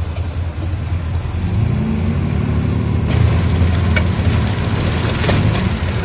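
Komatsu D31P bulldozer's diesel engine running under load, its note rising and strengthening about a second and a half in. A harsher, noisier grinding sound joins it from about three seconds in.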